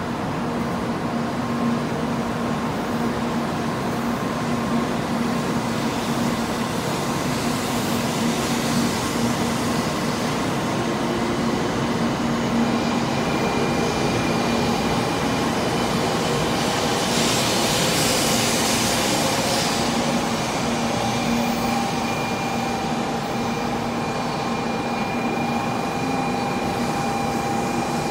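700 series Rail Star Shinkansen pulling away from the platform and accelerating: a steady hum, then a whine from the traction motors that climbs in pitch as the train gathers speed. The rush of the cars sweeping past peaks about two-thirds of the way in.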